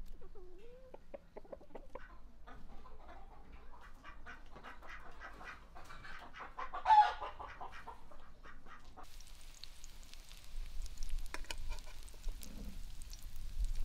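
Chickens clucking, with one louder call about seven seconds in. About nine seconds in, the sound switches to beef liver patties frying in hot oil in a pan: a steady sizzle with scattered crackles.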